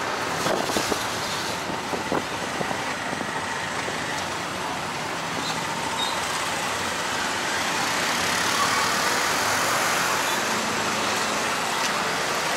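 Steady city traffic noise heard from a moving tuk-tuk: a constant wash of engine and road noise, with cars and motorbikes going by. There are a few light knocks in the first couple of seconds.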